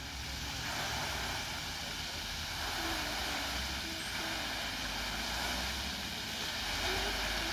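Lake fountain jet splashing steadily as its spray falls back onto the water, a continuous even rushing hiss with a low rumble beneath.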